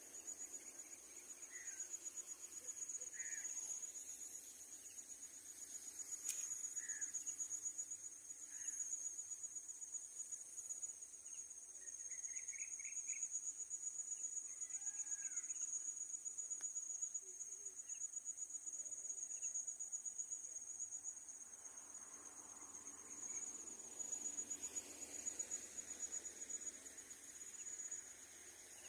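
A steady, high-pitched insect chorus, crickets or similar, with a fine pulsing trill. Scattered short bird chirps and calls come through it now and then.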